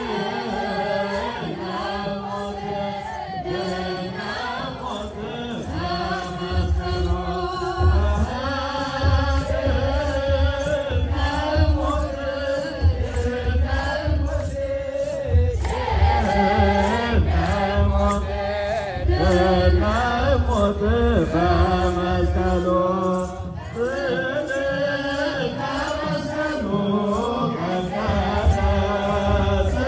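A large choir of Ethiopian Orthodox Sunday school students chanting a hymn (mezmur) in unison. A low, pulsing beat joins about six seconds in.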